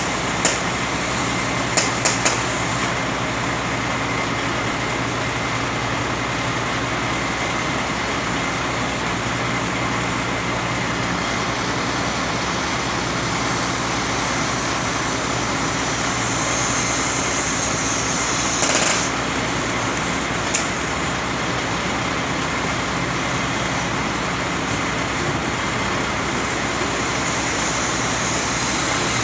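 A steady engine running with a low hum, under the hiss of an oxy-fuel cutting torch working on steel, which swells at times. A few sharp knocks stand out, two about two seconds in and more past the middle.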